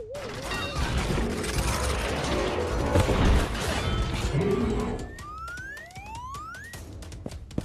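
Added sound effects: a wobbling tone fades at the start, then a loud noisy crash-like rumble lasts about four seconds, followed by several rising whistle-like glides.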